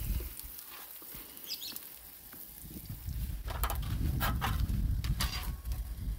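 Sliced meat sizzling on a non-stick Korean BBQ grill pan over a portable butane gas stove, with tongs clicking against the pan several times and a low rumble underneath, from about three seconds in. Before that a bird chirps briefly.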